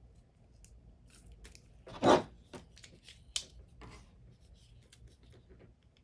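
A small clear plastic parts bag crinkling as it is handled and opened, with one louder tearing rustle about two seconds in and a few sharp clicks.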